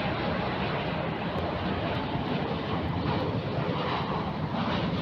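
Jet airliner's engines, a steady rushing noise.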